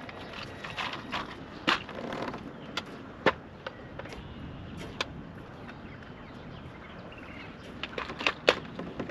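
Steady wind and water noise around a fishing kayak, broken by irregular sharp clicks and knocks of gear on the boat, with a cluster of louder knocks near the end.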